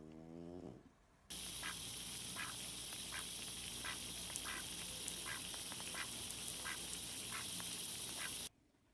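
A brief, low, pitched animal sound at the start. Then short animal calls, repeated about twice a second over a steady hiss, start abruptly about a second in and stop abruptly near the end.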